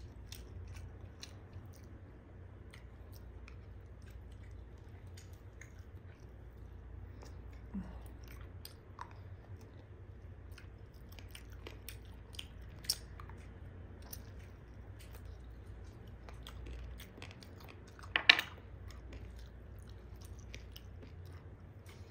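Close-up chewing and small wet mouth clicks of a person eating beef biryani with the fingers. One sharper, louder sound comes about three-quarters of the way through.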